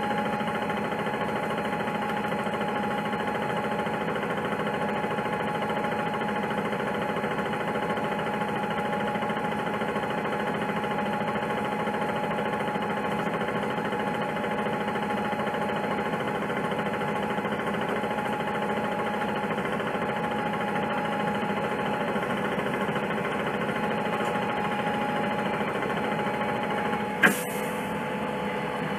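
The Cummins C Gas Plus natural-gas engine of a 2006 Orion VII CNG transit bus running at a steady note, a constant hum with a few steady whining tones. Near the end a sharp click sounds, after which the tone of the hum shifts slightly.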